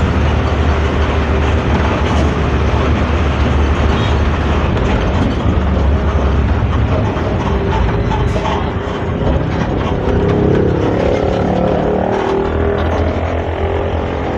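Hino AK3-HR bus's diesel engine and exhaust heard from the rear of the cabin while under way: a deep, steady growl. Past the middle the low drone drops away for a few seconds and a rising pitch comes in, then the deep drone returns near the end.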